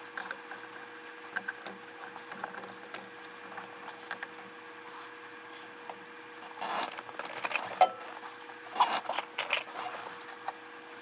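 Small clicks, taps and rattles of parts and tools being handled while a dash-mounted tachometer is refitted, busier in the second half, over a faint steady hum.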